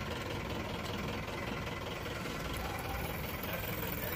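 Vehicle engine running steadily with road noise, heard from inside the cab while driving.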